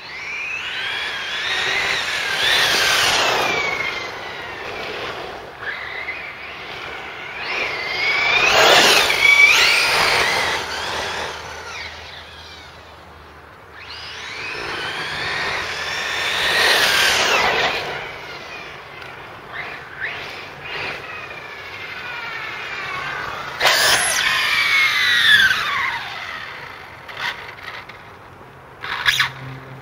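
Brushless electric motor and drivetrain of a 1/8-scale Losi 8ight-T RC truggy on 6S whining past at speed four times, the pitch rising as it comes near and falling as it goes away. A couple of sharp clicks are heard near the end.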